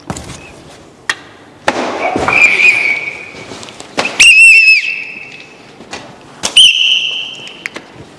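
A pea whistle blown in three blasts, the middle one warbling, mixed with several sharp cracks and smacks.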